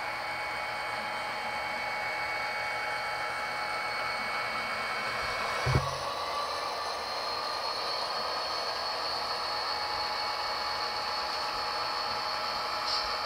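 HO scale model diesel locomotives running on the layout: a steady whirring hiss of their motors and wheels on the track. A short thump comes about six seconds in, after which a steadier high whine continues.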